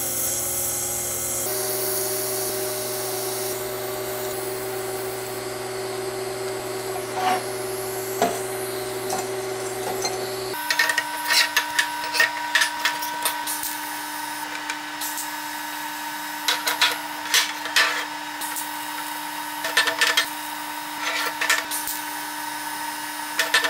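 TIG welding arc buzzing steadily on a steel engine mount bracket. About ten seconds in, the buzz cuts to a different steady tone, with scattered sharp clicks and crackles.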